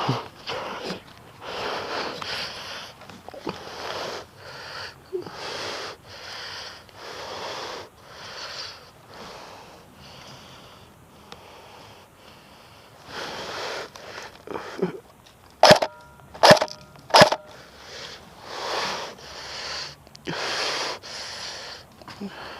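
Heavy, rhythmic breathing of an airsoft player close to the microphone, about one breath a second. Three sharp cracks come in quick succession about three quarters of the way through.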